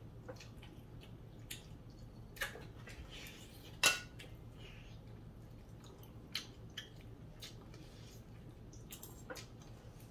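Scattered light clicks and clinks of cutlery against ceramic dinner plates as people eat, the sharpest clink about four seconds in.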